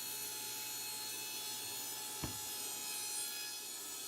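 Old Craftsman table saw running steadily and ripping a 2x4 into quarter-inch strips, with one sharp knock about two seconds in.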